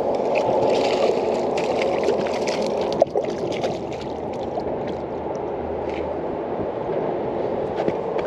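Steady rush of fast-flowing river water, with scattered small clicks and one sharp knock about three seconds in.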